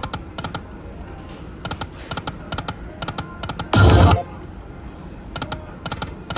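Lightning Link slot machine spinning, with repeated quick clusters of sharp clicks as the reels run and stop. A short, loud electronic sound effect comes from the machine about four seconds in.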